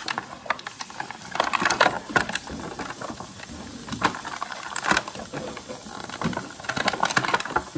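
Clear plastic blister packaging crinkling and crackling as hands squeeze and pull at it to get the accessories out, in irregular bursts of sharp crackles.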